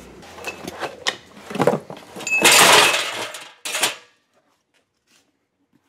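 Knocks and clatter of objects being handled, with a louder scraping rattle about two and a half seconds in.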